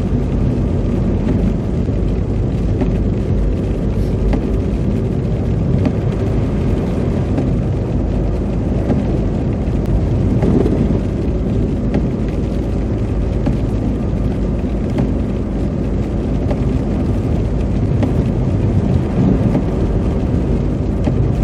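Car tyres running in the ruts of ice and slush, heard inside the cabin as a steady rumble with a faint droning hum. This is the howl that the imprints a plow truck's tyres leave in the ice or slush make when you drive on them.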